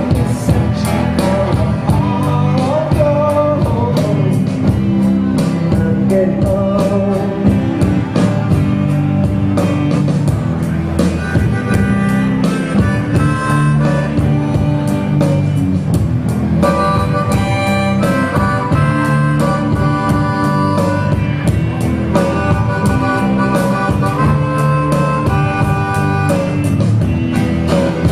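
Live band music: a harmonica, cupped to the vocal microphone, plays the lead line in held, wailing notes over bass and guitars with a steady beat.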